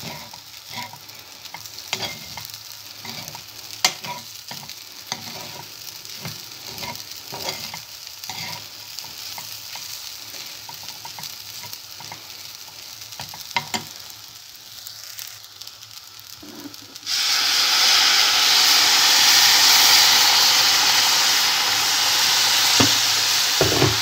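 A metal spoon stirring and scraping bulgur fried with tomato paste in a stainless steel pot, in short irregular scrapes. About 17 s in, a sudden, much louder steady sizzling hiss starts as hot water meets the hot bulgur in the pot and keeps sizzling.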